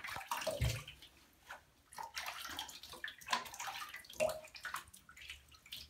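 Water splashing and sloshing in a bathtub in irregular bursts as a beagle puppy is rinsed by hand.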